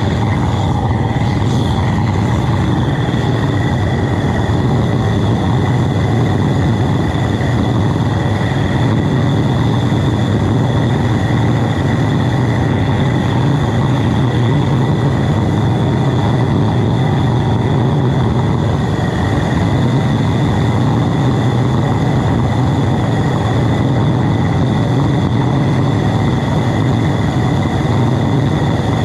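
High-velocity diesel burner firing into a small homemade foundry: a loud, steady rush of flame and compressed air, with a thin steady high whistle above it.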